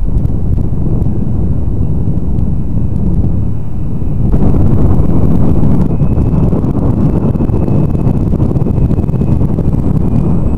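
Wind buffeting an outdoor microphone: a heavy, rumbling noise that gusts louder for a second or two about four seconds in.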